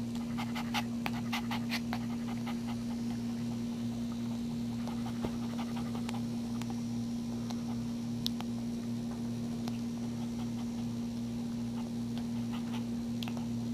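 Mother dog panting after whelping, with scattered short clicks, mostly in the first couple of seconds and again near the end. A steady low hum runs underneath throughout.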